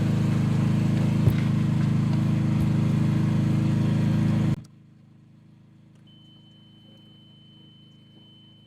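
Mini excavator engine running steadily, with a couple of light knocks, then cutting off suddenly about four and a half seconds in. A faint steady high tone follows.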